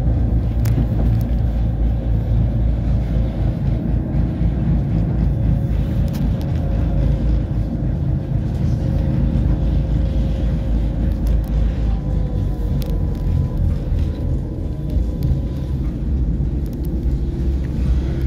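Electric tram running along street track, heard from inside: a steady low rumble of wheels on rails, with faint whining tones and a few sharp clicks.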